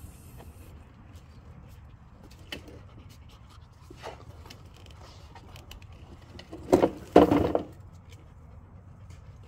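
A toddler handling a plastic toy dump truck on hay: a few light knocks, then two louder short bursts of sound about seven seconds in, over a low steady rumble.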